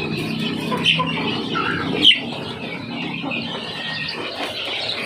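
Chickens squawking and squealing in distress as they are handled and sprayed, with a sharp click about two seconds in.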